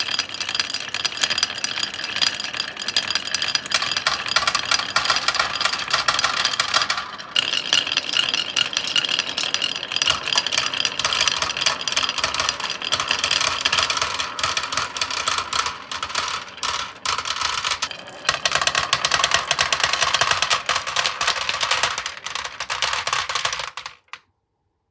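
Marbles rolling and clattering down a wooden marble-run track: a dense, continuous rattle of rapid clicks with a ringing tone. The ringing changes pitch twice as the marbles move onto different track sections, and the sound cuts off suddenly near the end.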